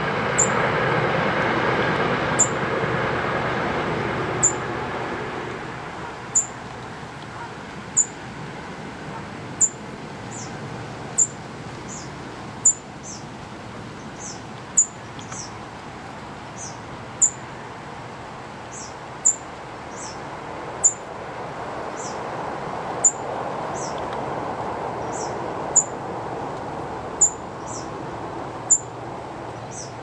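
Fledgling songbird begging with single thin, high peeps, each dropping slightly in pitch, repeated about every one and a half to two seconds, now and then two close together. A low rumble of passing traffic sits underneath, loudest in the first few seconds.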